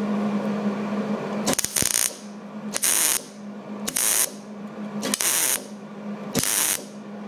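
Hobart Handler 187 MIG welder laying five short tack welds on thin 19-gauge sheet steel, about one a second, each a steady sizzle with little popping. This is the even, bacon-like sizzle of a properly set weld, with the torch held at an angle for a cooler weld on thin metal.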